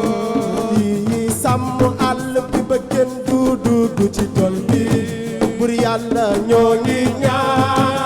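Senegalese assiko music: fast, dense hand-drum strokes with a singing voice over them.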